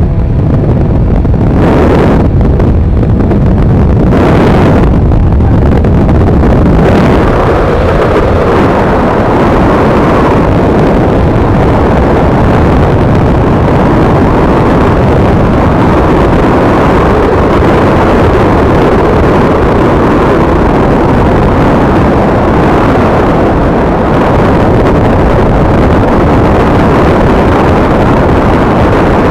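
Heavy wind buffeting the microphone of a camera on a motorcycle at highway speed, with the motorcycle engine running steadily underneath. The wind comes in gusts over the first few seconds, then settles to a steady rush.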